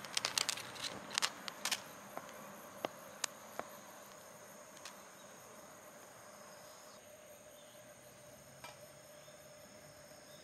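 Insects chirring steadily in the grass, a constant thin high drone. A scatter of sharp small clicks and crackles comes in the first four seconds, thickest in the first two.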